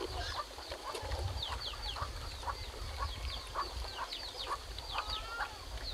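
Chickens clucking, with many short high chirps falling in pitch, several a second, over a steady low rumble.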